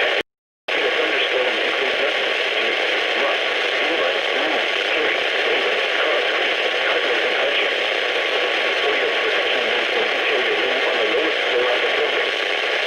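Weather radio receiver hissing with static from a weak broadcast signal. The sound cuts out completely for about half a second just after the start, then the hiss resumes steadily.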